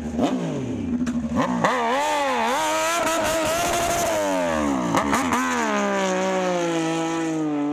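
Moto2 racing motorcycle's Triumph 765 cc three-cylinder engine revved hard, its pitch sweeping up and down again and again through a rear-tyre burnout. In the last couple of seconds the pitch falls steadily.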